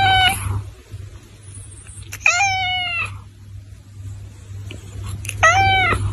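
Domestic cat meowing: a long held meow ends just after the start, then two shorter meows follow about three seconds apart, each dropping slightly in pitch.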